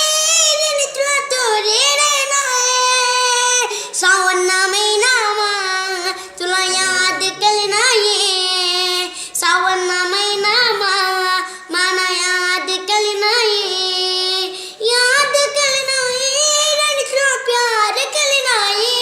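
A child singing a song solo in a high voice, holding and bending long notes in phrases with short breaks for breath.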